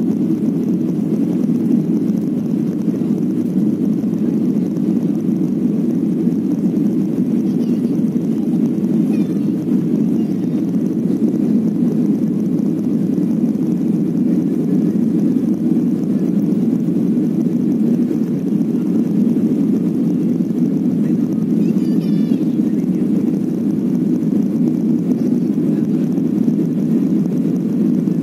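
Steady drone of a jet airliner's engines and rushing airflow heard from inside the passenger cabin during the climb after takeoff: a loud, even, low rumble.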